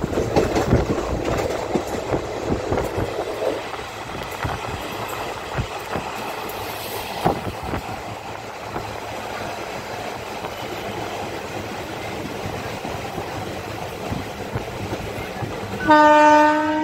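Railway coach running along the track, heard at its open doorway: a steady rumble with wheel clicks over rail joints, densest in the first few seconds. Near the end a train horn sounds loudly on one steady note.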